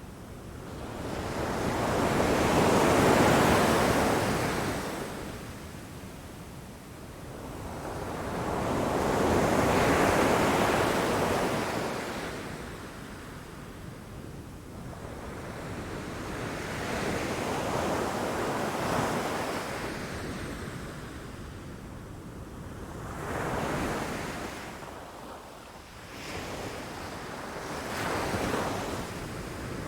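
Sea waves breaking against rocks and washing up the shore, coming in slow surges every several seconds: two big ones in the first half, then a longer, gentler one and two shorter, smaller ones near the end.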